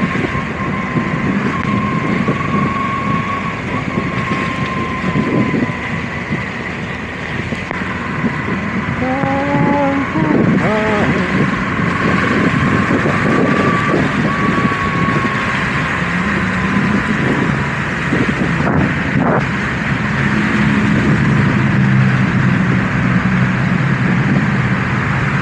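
Kawasaki KLE250 motorcycle engine running steadily under way, with wind rushing over the microphone. A brief pitched sound cuts in about nine to eleven seconds in.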